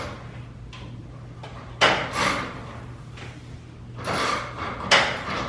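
Garage door hardware being worked on by hand. There is a sharp knock about two seconds in and another near the end, with rattling and scraping between them, over a steady low hum.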